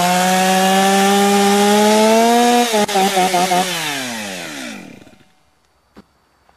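Chainsaw running at high revs, its pitch creeping up, then wavering briefly as the throttle is blipped before it winds down and stops about five seconds in. A single sharp click follows about a second later.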